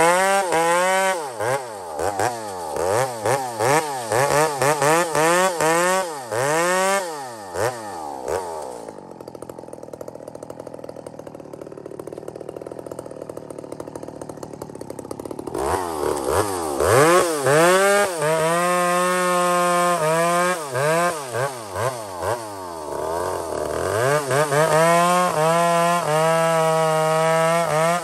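Chainsaw with a long bar bucking small firewood logs with the tip of the bar, the engine revving up and dropping back again and again through a run of short cuts. About eight seconds in it falls back to idle for some seven seconds, then revs up again for another run of quick cuts.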